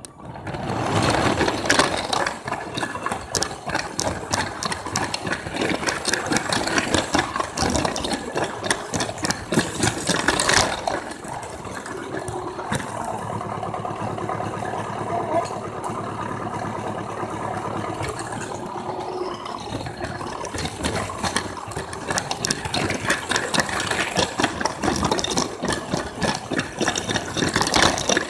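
Motorized Lego train running: a steady motor whir with a dense clattering rattle, starting up suddenly.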